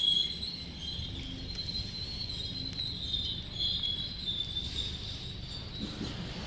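Outdoor night ambience: a steady high-pitched insect chirring over a low rumble.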